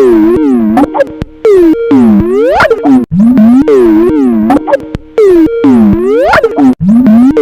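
Skype incoming-call ringtone playing on a loop, heavily warped so that its notes swoop up and down in pitch glides, very loud. The loop starts over about every four seconds, twice here.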